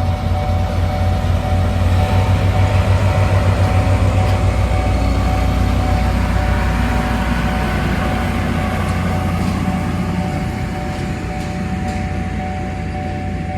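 A diesel railcar's engine runs with a heavy low rumble, growing louder about two seconds in and easing off slowly after that. Steady ringing tones from the station's level-crossing warning bell sound over it throughout.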